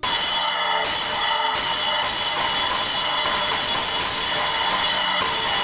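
Zildjian 10-inch A Custom splash cymbal struck repeatedly with a drumstick, its keyholed mounting hole freshly repaired. It keeps up a loud, bright, continuous wash, with fresh hits right at the start, twice more in the first couple of seconds, and once near the end.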